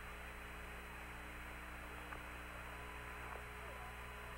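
Steady hiss and electrical hum of the Apollo air-to-ground radio link with no voice on it, fairly quiet, with a couple of faint brief chirps in the middle.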